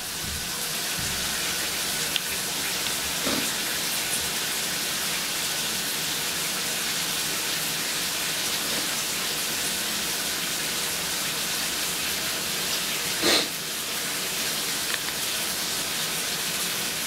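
Shower running: a steady hiss of spraying water, with one brief louder sound about thirteen seconds in.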